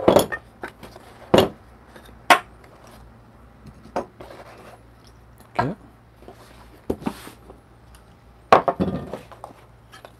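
Scattered knocks and clatters of the parts of a Flair Neo manual espresso press being taken out of a foam-lined hard case and set down on a wooden table: a handful of separate knocks, with a short cluster of them near the end.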